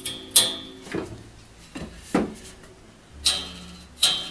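Tensioned crosscut blade of a wooden frame saw plucked by finger about five times, each pluck a sharp twang that rings on in a steady note. The pitch of the ringing blade is the sign of how tight the turnbuckle has drawn it, here judged about right.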